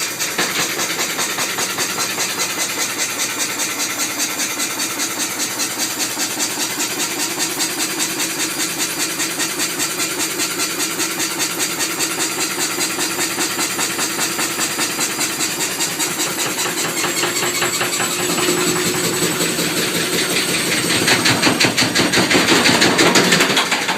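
Beko washing machine spinning with an unbalanced load: the drum and motor run with a steady, regular pulsing beat, and the sound grows louder near the end.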